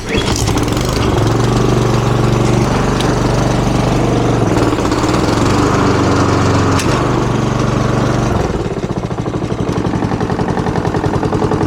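Honda walk-behind lawn mower's single-cylinder four-stroke engine running after its no-start repair. It comes in suddenly and runs at a steady speed, then about eight seconds in drops to a lower, rapidly pulsing chug.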